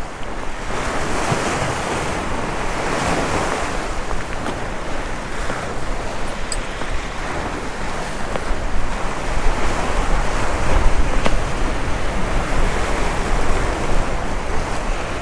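Waves breaking and washing against the granite boulders of a jetty, a steady surf wash, with wind buffeting the microphone.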